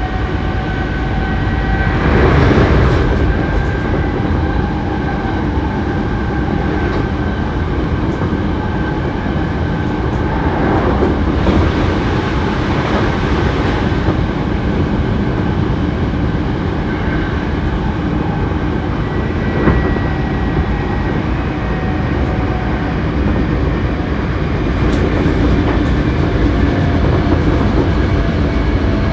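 Running sound of a Hankyu 7300 series electric train car under way between stations: steady wheel-on-rail rumble with occasional clacks from rail joints and a few steady whining tones from the traction equipment. This car is one known among railfans for its unusual running noise.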